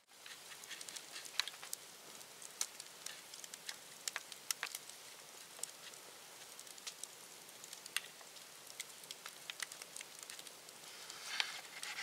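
Wood campfire of stacked sticks crackling, with irregular sharp snaps, often several a second, over a faint hiss.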